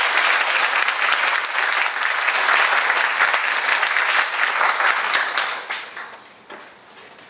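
Audience clapping in applause for a speaker being welcomed on stage, dense and steady, then dying away near the end.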